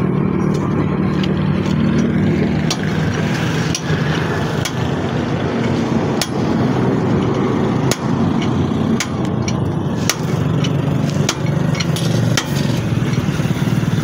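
Gas cutting torch hissing steadily as its flame works on a seized truck wheel hub nut, with a low hum underneath and sharp ticks about once a second.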